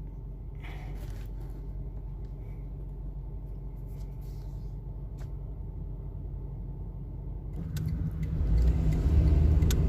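A car's engine and road rumble, steady and low, growing clearly louder about eight seconds in.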